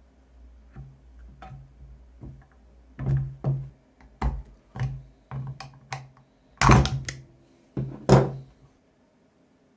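Irregular metal clunks and knocks as a Lucas 16W wiper motor is handled on a wooden bench: the gear wheel going into the gearbox housing and the motor being moved and set down. The two loudest knocks come near the end.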